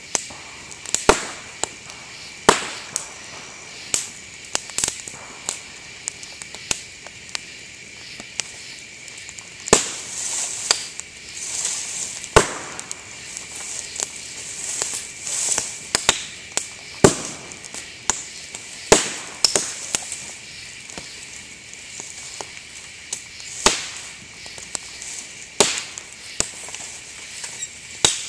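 Dry bamboo stalks burning in a campfire, bursting with sharp pops at irregular times, some loud, over a steady crackle of burning. The pops come from sealed bamboo sections bursting as the air and moisture trapped inside heat up.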